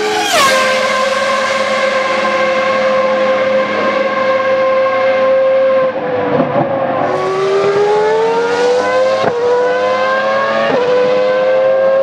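Ferrari race car passing at speed, its high-revving engine dropping sharply in pitch as it goes by, then holding a steady high note. About six seconds in the note dips, then climbs again, with two quick upshifts near the end.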